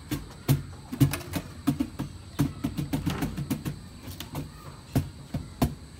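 Irregular hand taps and knocks on a wooden cajón, about two or three a second, each with a low thud, along with knocks from drum shells being handled and stacked.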